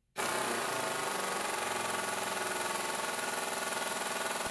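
Impact wrench hammering steadily through a Mac Tools 3/8-inch universal impact socket into a torque-test fixture, starting a moment in and holding an even, unbroken rattle at constant level.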